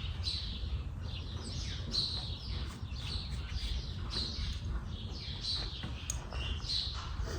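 Small birds chirping: short, high, downward-sliding chirps, one or two a second, over a steady low rumble.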